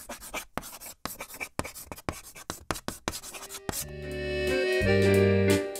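Chalk scratching on a blackboard in quick, irregular strokes as words are written out. About three and a half seconds in, music with held chords comes in and grows louder.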